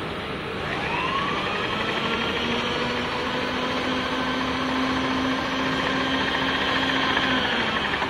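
Milling machine table power-feed motor winding up with a rising whine about half a second in, then running steadily as it drives the table along, and winding down near the end.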